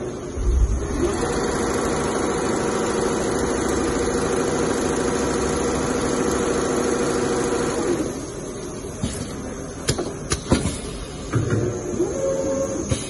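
Two-head CNC leather pattern-sewing machine running steadily as both heads stitch. About eight seconds in it quietens, and a few sharp clicks follow.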